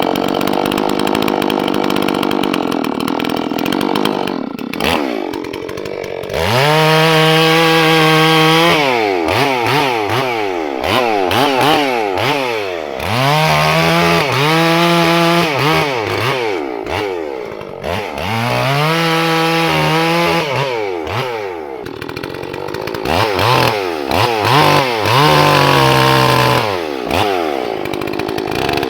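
Holzfforma G466 two-stroke chainsaw, a Stihl 046 clone, running under load in wood for about the first five seconds. It is then revved up and let back down to idle several times, the engine pitch climbing, holding high briefly and falling each time.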